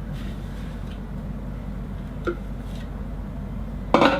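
Steady low hum in the background, with a light tap about two seconds in and a sharp knock near the end, as of something set down hard on a kitchen worktop while a crumb base is tipped into a tart tin.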